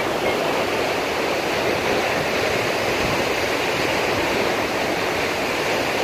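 Kapuzbaşı waterfall, a tall cascade falling down a cliff face, heard close up as a steady, even rush of water.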